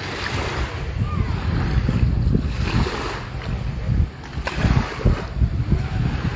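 Wind buffeting the phone's microphone in an uneven low rumble, over a steady hiss of beach wind and surf.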